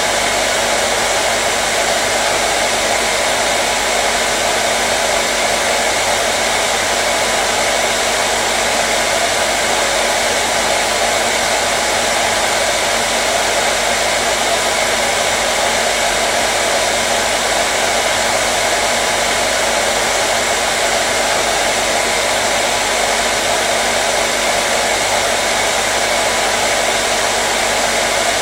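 Hair dryer running continuously with a steady, even rush of air and motor hum, unchanging throughout.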